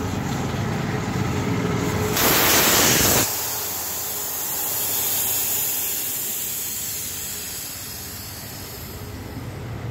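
Air rushing out of a Splendor Plus motorcycle's tubeless tyre through the open valve stem after its valve core is unscrewed, deflating the tyre. A loud blast of hiss about two seconds in lasts about a second, then drops to a steady hiss that slowly fades.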